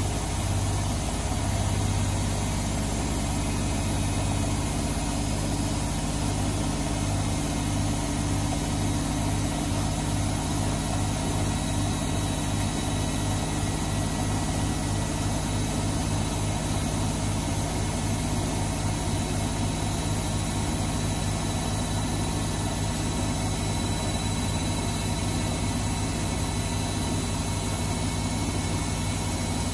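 Electra Electronic front-loading washing machine running mid-cycle: a steady low hum with a throb that pulses a few times a second.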